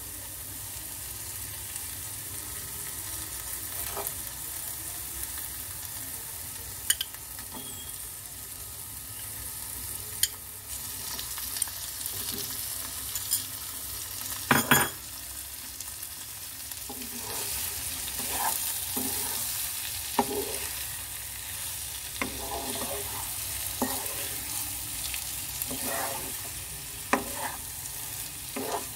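Peas masala sizzling gently in a nonstick frying pan, with a few sharp knocks, the loudest about halfway. Through the second half a wooden spatula scrapes and stirs repeatedly as paneer cubes are mixed into the masala.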